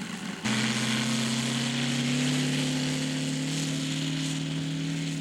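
Radio-controlled scale model airplane engine running at steady power in flight, starting abruptly about half a second in, its pitch creeping slowly upward.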